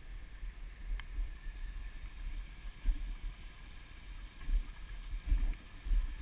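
Irregular low rumbling of wind buffeting a GoPro microphone, over the faint steady trickle of a shallow creek running over stones. A single sharp click about a second in.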